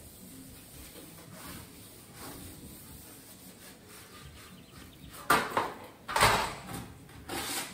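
Quiet background, then three short scraping or rubbing noises from handling work on the shower wall, the loudest about six seconds in.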